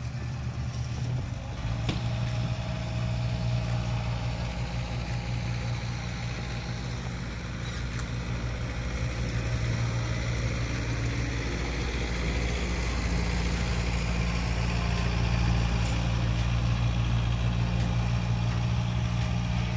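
An engine running steadily with a low, even hum, shifting slightly in pitch a couple of times.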